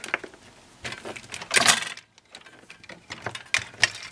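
Clicks and rattles of wires, crocodile clips and small tools being rummaged through on a workbench, with a louder rustle about a second and a half in and a few sharp clicks near the end.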